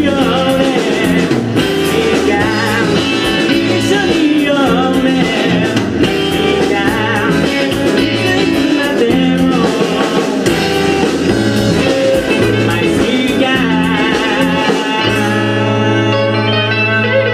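Live rock band performing: a male lead vocal sung over acoustic guitar, electric guitar, bass and drums. About fifteen seconds in, the band holds one sustained chord.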